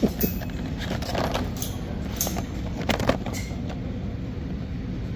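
Steady low rumble of shop background noise, with a few short clicks and knocks, most between two and three and a half seconds in.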